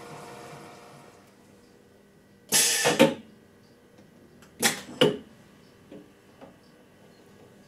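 Grinder polisher's turntable motor running down and falling quiet about a second in. Then two short, loud hissing bursts about two seconds apart, each ending in a knock, as the machine raises its head and sample-loading feet at the end of the cycle. A couple of faint clicks follow.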